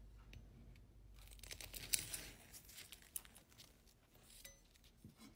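Kitchen knife cutting down through a baked cupcake in its paper case on a wooden chopping board: faint crumbly tearing, paper crinkling and a few light clicks.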